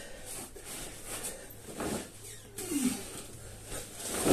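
A man exercising with a sandbag: hard breaths and a short grunt as the bag is lifted, with a few soft rustles from the bag and a thump near the end.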